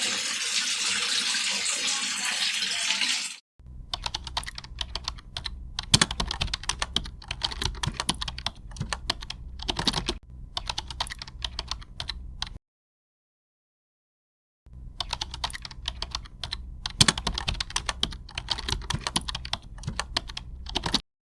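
A few seconds of steady hiss, then a cut to rapid, irregular clicking, like keyboard typing, in two long runs with a stretch of silence between them.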